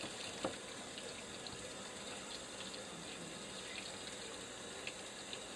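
Tap water running steadily, with faint clicks and knocks of a knife on a plastic cutting board as a mackerel's head is cut off; the sharpest knock comes about half a second in.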